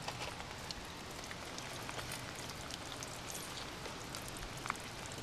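Steady rain, with many scattered drops ticking.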